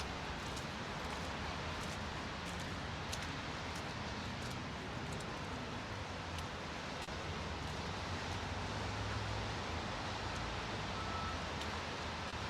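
Steady outdoor street noise: a low rumble, most likely traffic, under an even hiss, growing a little louder in the second half, with a few faint ticks.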